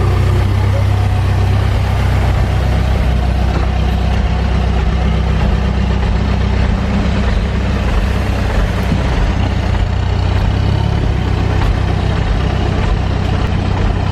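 Diesel engine running steadily at an even, low speed.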